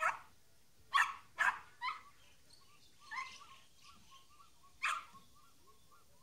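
Yorkshire terrier barking in short, sharp yaps, six in all at uneven intervals, three close together about a second in; the dog is agitated. From about halfway through, a faint high chirp repeats steadily in the background, about three times a second.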